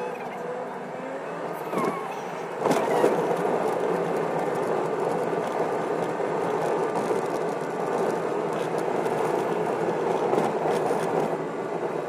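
Car driving, heard from inside the cabin: a steady engine and road noise, with a few short knocks about two to three seconds in.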